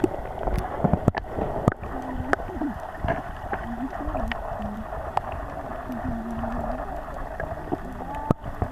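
Underwater sound picked up by a camera held below the surface in shallow sea water: a muffled steady water noise with scattered sharp clicks and short, low wavering tones.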